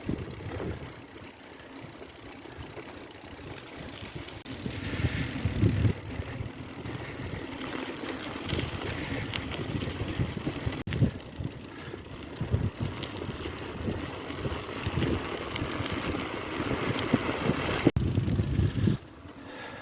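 Mountain bike being ridden: tyre and riding noise with an uneven low rumble on the microphone. The sound drops off suddenly near the end.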